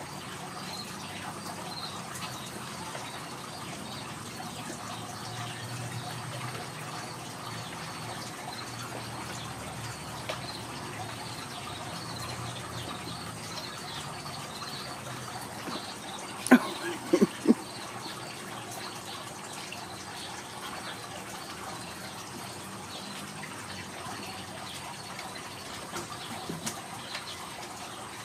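Kittens knocking against a cardboard play tube: a quick cluster of three sharp knocks a little over halfway through, then a few lighter taps near the end, over a steady rushing background noise with a faint high whine.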